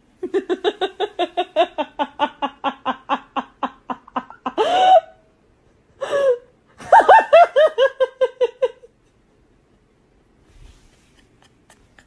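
A person laughing: a fast, even run of 'ha-ha' pulses for about four seconds, two louder drawn-out cries, then another quick run of laughs that stops about nine seconds in.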